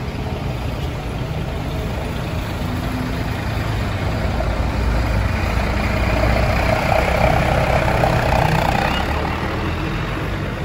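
Heavy engine of a large tour bus running, its noise building to its loudest a few seconds before the end and then easing off.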